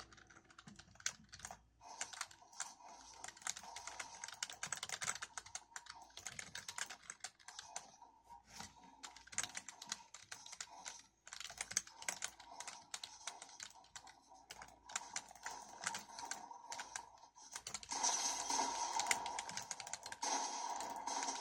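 Typing on a Geodamer 65% mechanical keyboard: a dense run of irregular key clacks. It speeds up and gets louder for the last few seconds.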